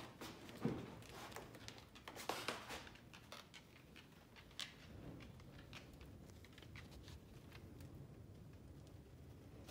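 A dog's claws clicking and tapping faintly on bare wooden floorboards, a few scattered clicks in the first few seconds and one more a little later, then only a faint low room hum.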